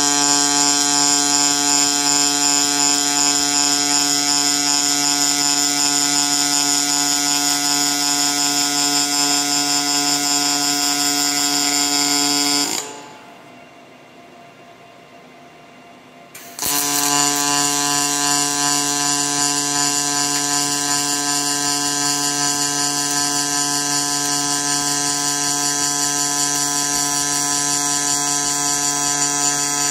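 Robotic MIG welding torch running an arc along a sheet-metal bracket: a steady, loud electric buzz. It cuts off about 13 seconds in as the arc stops, then starts again about four seconds later for the next weld.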